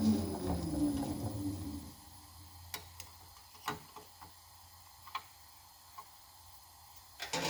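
A power tool's motor winding down, its pitch falling steadily over the first two seconds, then quiet broken by about six light, sharp clicks and taps spread over the next few seconds. A louder noise starts right at the end.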